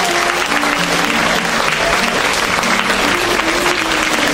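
Audience applauding steadily, with a faint melody of held notes going on underneath.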